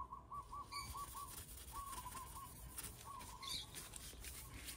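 A bird calling in short runs of quick repeated notes, three times, over faint scratchy scrubbing of an abrasive pad on a chrome fork tube.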